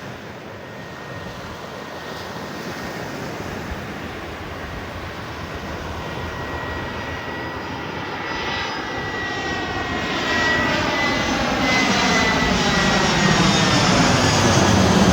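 Fixed-wing aircraft approaching low overhead, its engine noise growing steadily louder, with a thin high whine held through the middle.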